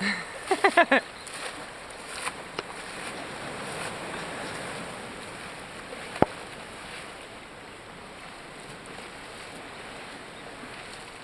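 Steady outdoor wash of wind and small waves lapping along the shore. A few short pitched calls or voice sounds come in the first second, and a single sharp click falls about six seconds in.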